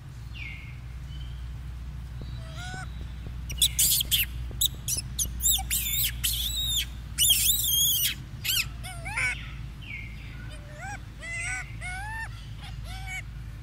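Baby macaque squealing in loud, high-pitched screeching calls, densest in the middle. Near the end come shorter, repeated calls that rise and fall in pitch.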